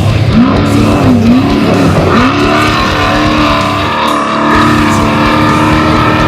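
Off-road race vehicle's engine revving up, dropping back and climbing again over the first couple of seconds, then holding a steady high pitch, heard with background music.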